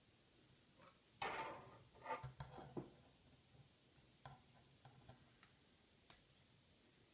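Plastic K'NEX rods and connectors clicking and rattling as they are snapped together by hand. A cluster of snaps and rattles comes about a second in, followed by a few light single clicks.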